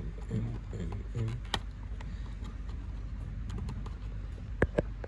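Small clicks and taps of laptop parts being handled as antenna cable connectors are unclipped, over a steady low hum, with two sharp clicks near the end.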